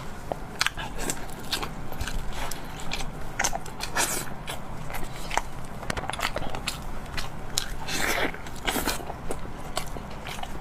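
Close-miked eating: a person biting and chewing, with many irregular sharp crackling clicks and smacks.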